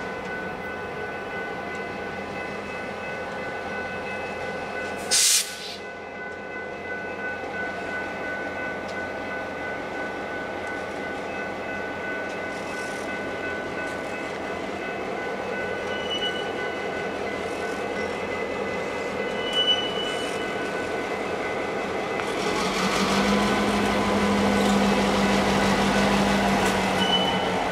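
Diesel locomotive VTR 208 leading a passenger train slowly toward and past, its engine and wheels growing louder over the last five seconds. A brief sharp hiss comes about five seconds in, and a few short high squeaks follow later.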